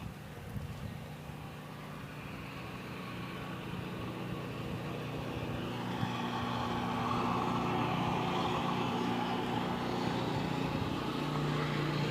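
A motor vehicle engine running steadily, growing louder over the first several seconds and then holding level.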